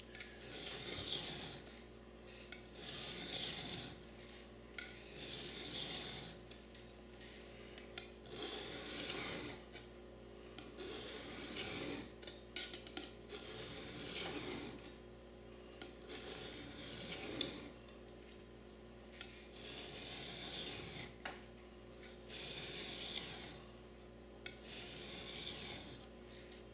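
A steel knife blade scraping across a diamond sharpening stone in slow, even strokes: a rasping swipe about every two seconds, around a dozen in all. The blade is very dull and is being ground back toward an edge.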